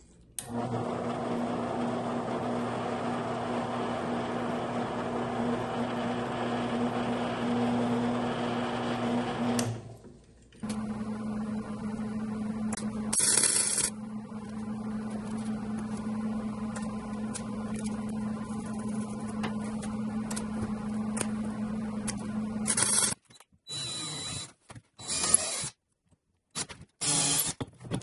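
An old drill-press electric motor runs with a steady hum and stops about ten seconds in; after a short gap a similar steady hum runs on, with a brief crackling burst partway through. Near the end, a cordless drill whirs in several short bursts.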